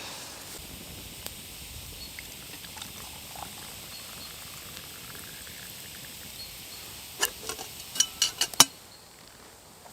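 A pot of birch sap and pine needle tea boiling over a campfire, a steady bubbling hiss with small ticks and pops. Near the end comes a quick run of sharp clinks, louder than the boil.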